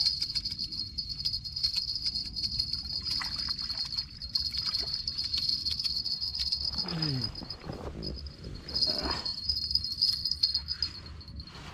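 Fishing reel being wound in as a small ide is played to the bank, making a steady high whir that pauses briefly about eight seconds in and stops shortly before the end, as the fish is lifted out.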